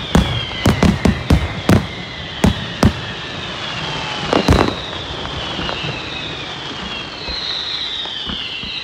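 Aerial fireworks display: a quick run of sharp bangs in the first three seconds, a bigger bang about four and a half seconds in, then high whistles falling in pitch over the rest.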